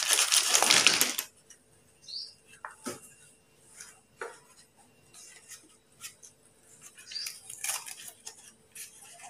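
Slate pencils tumbling out of a cardboard box onto a paper plate, a clattering rustle for about the first second. Then come a few scattered light clicks of the sticks being moved. Near the end there is rustling as the next cardboard pencil box is torn open.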